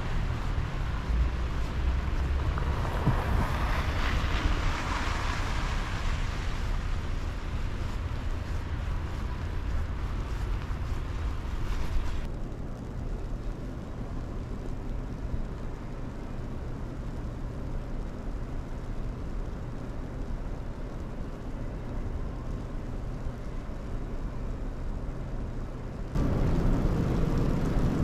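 Snowy city street ambience: a steady low rumble of traffic, with wind buffeting the microphone. The sound changes abruptly about twelve seconds in and again near the end.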